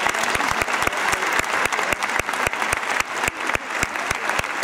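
Audience applauding: many people clapping steadily in a large hall, with some close, sharp claps standing out from the mass.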